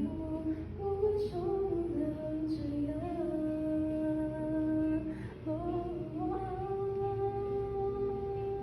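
A woman's voice singing a slow melody without words, moving through a few notes and then holding two long notes, the second dying away near the end, with the echo of a classroom around it.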